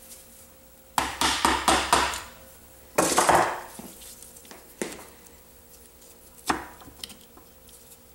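Metal clatter and knocks as the alternator stator cover is worked loose and pulled off a 1973 Honda CB450 engine case: a quick run of rattles about a second in, a longer scraping clatter a couple of seconds later, then two single knocks.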